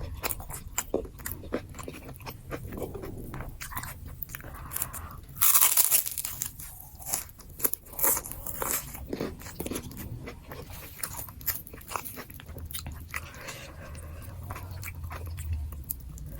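Close-miked eating of nasi gila: chewing with many small crackles and clicks, and one loud crunchy bite about five and a half seconds in.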